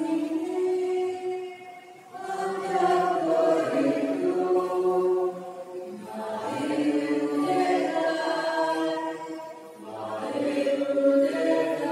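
Voices singing a slow hymn, in long held notes grouped into phrases of about four seconds each.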